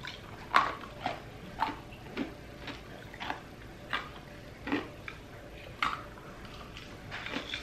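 Crushed ice being crunched between the teeth: a string of sharp, brittle crunches, roughly one every half second or so, with a short pause a little past the middle.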